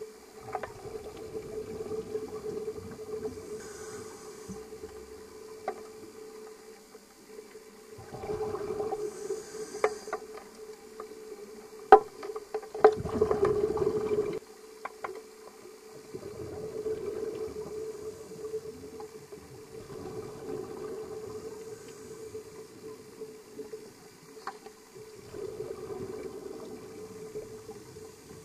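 Underwater sound of a scuba diver breathing through a regulator: noisy rushes of exhaled bubbles every few seconds. Under them runs a steady hum, with a few sharp clicks, the loudest about 12 seconds in.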